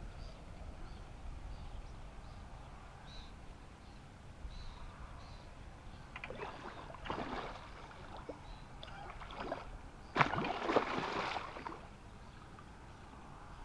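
Water splashing in several short bursts, the loudest about ten seconds in, as a large grass carp thrashes in shallow water at the bank.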